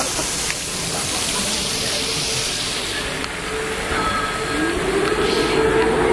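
Splash-pad fountain jets spraying water, a steady rushing hiss. About four and a half seconds in, a held tone rises in pitch and stays on.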